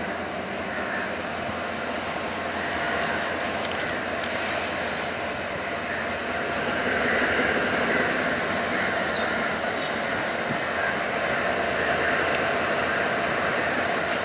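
Diesel locomotive engines running steadily as a locomotive rolls slowly closer, getting a little louder about halfway through.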